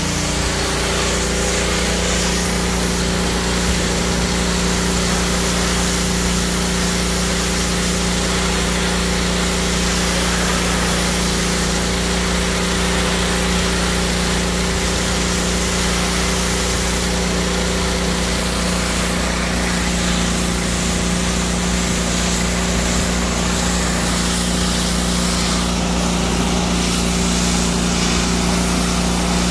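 Gas-powered pressure washer running steadily: its small engine's constant hum under the hiss of the high-pressure water jet spraying a pickup's hood.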